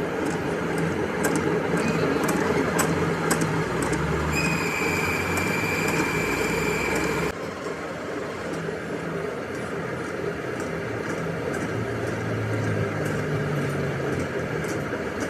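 Metalworking machinery running steadily in a machine shop, with faint ticks. A high whine joins in for about three seconds near the middle, then stops abruptly as the overall noise drops.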